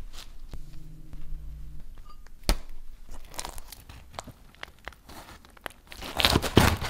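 Crusty charred pizza-dough bread crackling and crunching as it is handled and pressed down on a loaded sandwich. There is a sharp knock about two and a half seconds in, and a louder run of crunching near the end.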